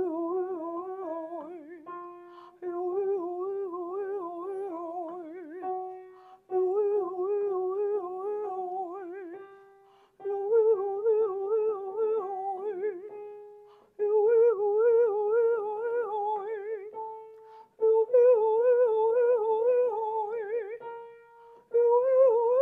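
A woman's singing voice running a vocal warm-up exercise with piano. About six repeated phrases of quick up-and-down pitch figures, each set up by a short piano note and each one a step higher than the last.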